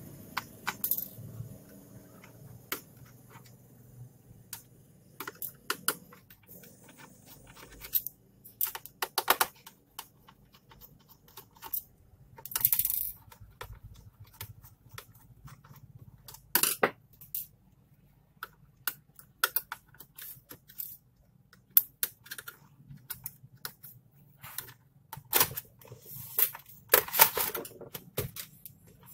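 Irregular small clicks, taps and scrapes of a screwdriver and the laptop's plastic and metal case parts being handled during disassembly, with a couple of longer scraping sounds, one near the middle and one near the end.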